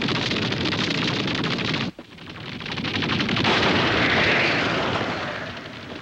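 Two cartoon sound effects: a dense, rapid crackling rattle that cuts off suddenly about two seconds in, then a noisy rush that swells up and slowly fades away.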